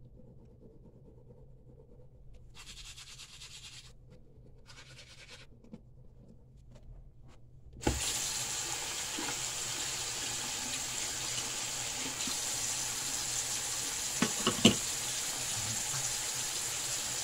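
A toothbrush scrubbing teeth in two short bursts, then a bathroom sink tap turned on about eight seconds in, running steadily into the basin. A couple of sharp knocks come near the end.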